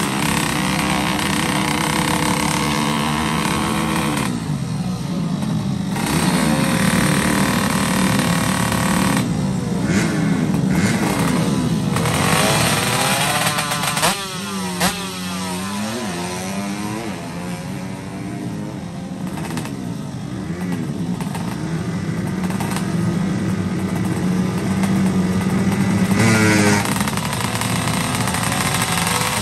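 Two-stroke drag-racing motorcycle engine running loud, its revs swinging up and down again and again as the throttle is blipped, with a loudest burst near the end.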